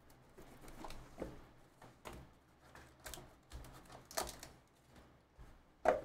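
Cardboard trading-card box being handled and opened by hand: a scattering of soft clicks, taps and scrapes of card stock, about one a second, the sharpest just before the end.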